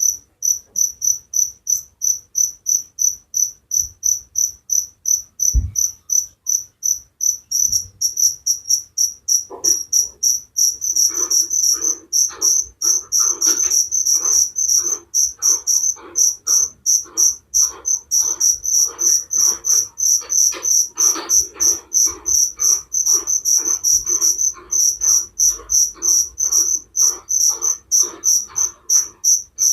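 A cricket chirping in rapid, regular high-pitched chirps, about three a second, without pause. From about ten seconds in, a lower, rougher pulse sounds along with each chirp.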